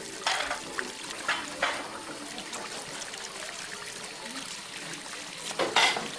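Water running into a kitchen sink, with dishes clinking and clattering as they are handled; a louder clatter comes near the end.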